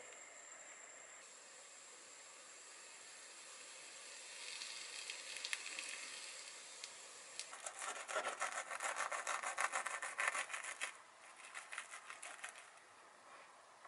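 A sandwich toasting in a small square pan on a gas burner, with a faint hiss that grows louder a few seconds in. Past halfway comes the loudest part: a knife sawing through the crisp grilled bread on a wooden board, a rapid run of scraping strokes that thins out near the end.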